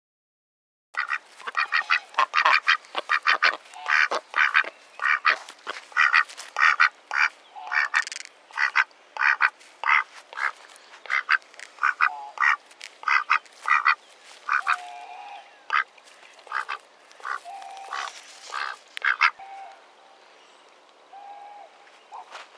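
Ducks quacking: a rapid run of short, loud quacks, several a second, starting about a second in and thinning out near the end.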